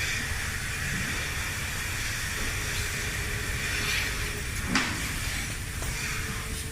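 A steady hiss that starts suddenly, with a single sharp knock about five seconds in, over a low rumble of machinery.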